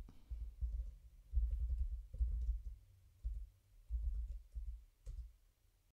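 Typing on a computer keyboard: soft, dull keystrokes in uneven bursts, thinning out near the end.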